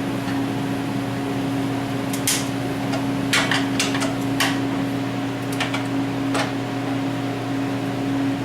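Scattered sharp clicks and light knocks of a hand wrench working the bolts that hold a table's base supports, most of them between about two and six and a half seconds in. A steady hum runs underneath throughout.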